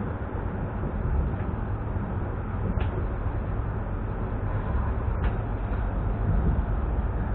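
ES2G 'Lastochka' electric multiple unit running at speed, a steady low rumble of the train in motion. Two brief high ticks cut through, about two and a half seconds apart.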